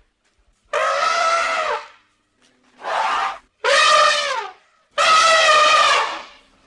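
A person vocally imitating a woolly mammoth, giving four trumpeting, elephant-like calls in a row, the longest near the end, with some calls sliding down in pitch as they fade.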